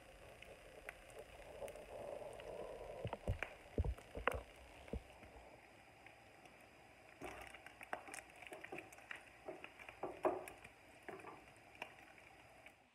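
Turkey bacon frying in a little oil in a nonstick frying pan, a steady sizzle with crackles, and a wooden spatula stirring and knocking against the pan, loudest about three to four seconds in and again around ten seconds in.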